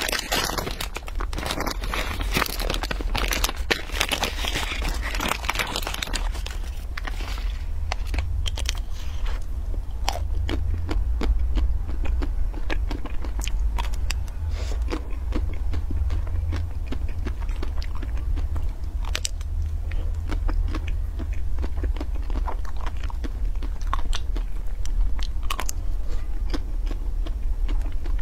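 A plastic ice cream bar wrapper crinkles as it is torn open. Then come crisp, crunching bites and chewing of a frozen ice cream bar on a stick, close to a clip-on microphone. A steady low hum runs underneath.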